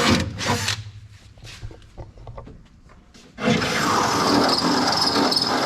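Cordless drill boring a hole, in two runs: a short run at the start, a stretch of small clicks and handling, then a longer run from about three and a half seconds in. The bit is struggling, and the drill's battery is thought to be running low.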